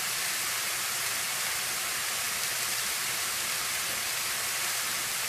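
Chicken and vegetable kebabs sizzling on a stovetop griddle: a steady frying hiss.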